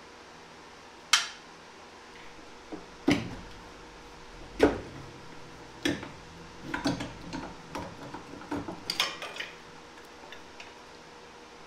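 Scattered metal clinks and knocks of hand work in an LS V8's engine bay as the transmission dipstick tube is worked loose and pulled out. Four sharp knocks spread over the first six seconds, then quicker clusters of lighter clinks.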